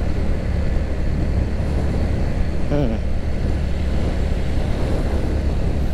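Kawasaki W175's air-cooled single-cylinder engine, fitted with an aftermarket exhaust, running steadily while the bike is ridden, mixed with a steady low rush of wind on the microphone.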